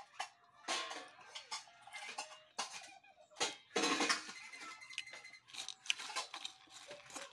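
Small cooked crabs and fingers clicking and scraping against a metal bowl as the crabs are picked through, in irregular sharp clicks with a longer rustling scrape about four seconds in.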